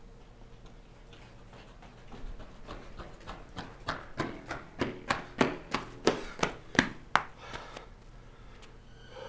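Footsteps on a hard floor, about three a second, coming closer and growing louder, then fading away near the end.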